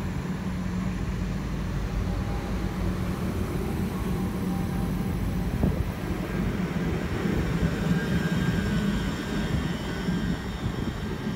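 Great Northern Class 387 Electrostar electric multiple unit moving along the platform: a steady low hum and rumble of its motors and wheels, with one sharp click about halfway and a faint whine rising in the second half.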